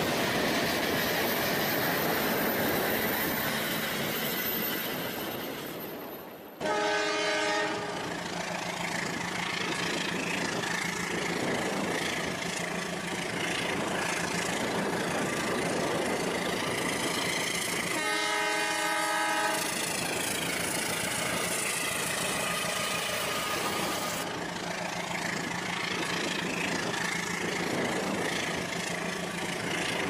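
Train running with a steady rumbling, rushing noise, and a multi-note horn sounding twice in short blasts, once about a quarter of the way in and again past halfway.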